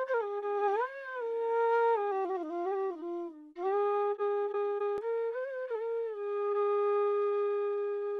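Background music: a solo flute melody with sliding, ornamented phrases, a short break about three and a half seconds in, then a long held note.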